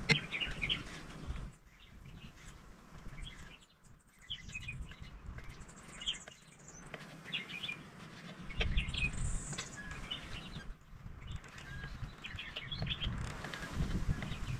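Birds chirping on and off, short high calls scattered throughout, over a faint low background rumble.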